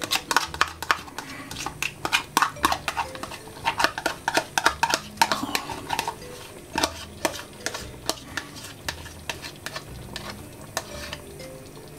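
A metal spoon scraping and tapping against a plastic measuring cup and the pot while Dijon mustard is spooned out of the cup. The sharp clicks come thick and fast for the first six or seven seconds, then thin out.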